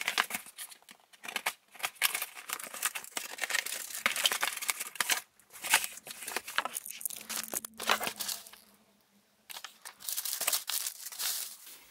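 Cardboard box flaps and packing paper being handled as a parcel is unpacked: irregular crinkling, rustling and scraping, with a short pause about three-quarters of the way through.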